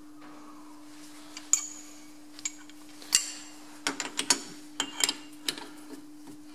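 Steel chuck key clicking and clinking against a lathe's independent-jaw chuck as it is fitted into a jaw screw and turned to adjust a jaw while truing the work. There are a few scattered sharp metal clicks with a short ring, then a quick run of them in the second half. A steady low hum runs underneath.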